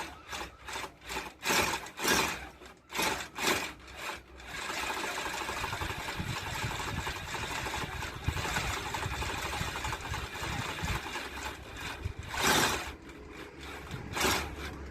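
Power drill boring a long masonry bit through a stone wall, first in short bursts about two a second, then running steadily for several seconds, with two more brief bursts near the end: the drill is being fed slowly while the bit comes through near hidden pipes and cables.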